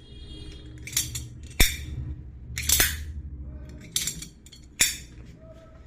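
A series of about five sharp metallic clicks and snaps, roughly a second apart, as a gravity pocket knife's blade is flicked open and shut and locks.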